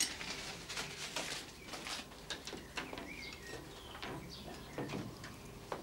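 Faint, scattered clinks and taps of china cups, saucers and cutlery, with a short chirp-like tone about halfway through.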